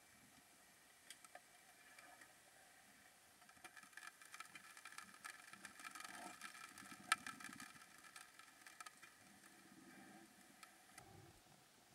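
Faint underwater ambience: scattered clicks and crackles over a faint steady hum, a little louder in the middle, with one sharper click about seven seconds in.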